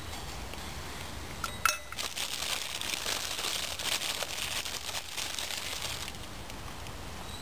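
A sharp metallic clink, a utensil against the stainless steel billy can, a little under two seconds in. It is followed by about four seconds of a plastic bag crinkling as it is handled.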